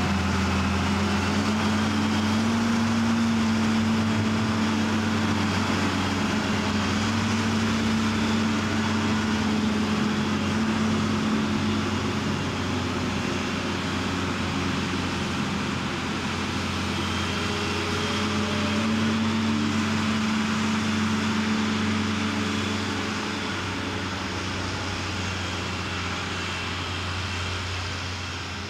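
Diesel engine of a wheel loader running, its revs rising and easing off several times as it drives, growing fainter near the end.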